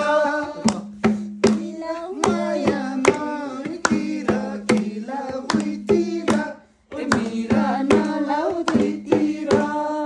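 A man singing a folk song, with a rhythm beaten out by hand at about two beats a second. The singing and beat break off briefly just before seven seconds and then resume.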